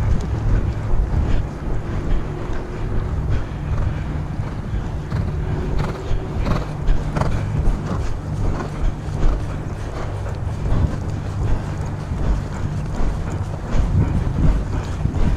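Wind buffeting the microphone of a rider on horseback, a loud, uneven low rumble, with the horse's hoofbeats faintly under it.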